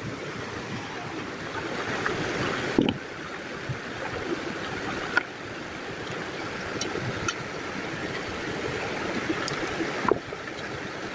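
Shallow rocky stream running steadily over stones and a small cascade, with three brief knocks spread through it.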